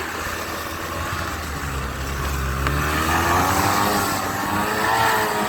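Snowmobile engine running under load, hauling a sled of wood uphill. About halfway through it revs up, its pitch rising and wavering.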